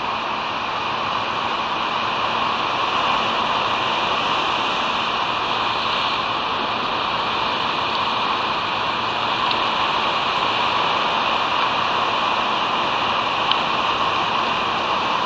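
Steady rushing noise of wind and surf on an outdoor nest-camera microphone above the sea, with one faint click near the end.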